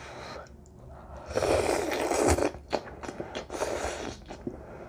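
A person slurping forkfuls of instant cheese ramen noodles. There is one long loud slurp about a second and a half in, then wet clicks of chewing and a shorter slurp near the end.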